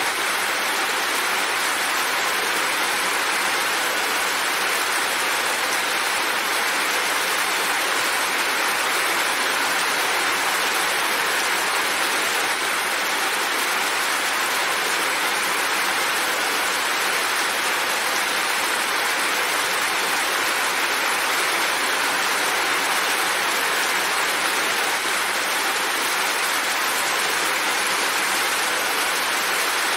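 Heavy rain falling steadily, an even hiss with no separate drops, thunder or changes standing out.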